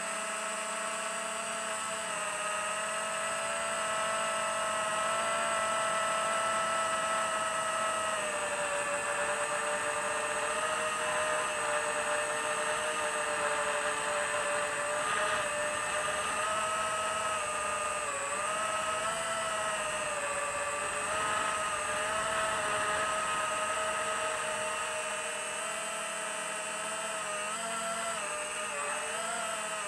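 FPV quadcopter's electric motors and propellers whining steadily in flight, the pitch wavering with throttle. The pitch steps slightly lower about eight seconds in and rises again near the end.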